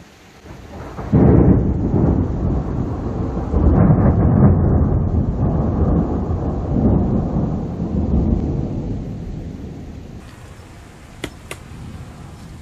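Thunder: a deep rumble that breaks in about a second in, swells twice more and dies away over several seconds. Rain hisses underneath, with two sharp ticks near the end.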